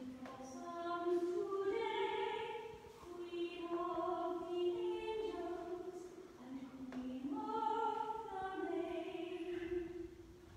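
A woman singing a slow hymn solo, holding long notes, with the last phrase dying away near the end.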